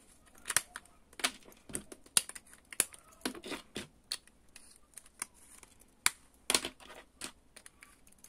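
Small plastic solid-gel nail polish pots being handled on a table: irregular sharp plastic clicks and taps, a dozen or so spread through the few seconds.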